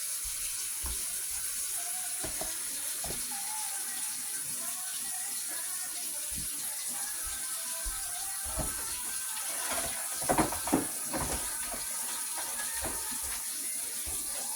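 Kitchen tap running cold water into a sink, a steady rush, with a few knocks and clatters about ten seconds in.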